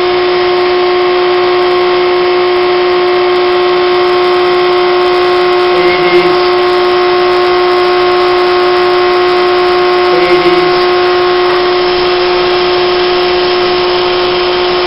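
Battery-powered electric motor spinning a magnet rotor inside a ring of copper strap, running steadily with a constant pitched hum, under the eddy-current drag that heats the copper. Two brief faint bumps come about six and ten seconds in.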